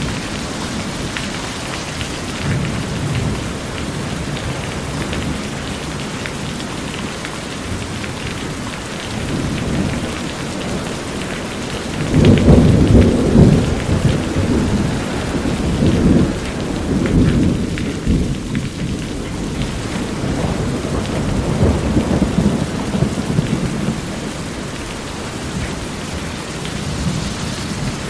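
Steady heavy rain falling on a corrugated metal roof and pouring off its edge, with low rolling thunder. The thunder swells loudest about twelve seconds in and rumbles up again several times after.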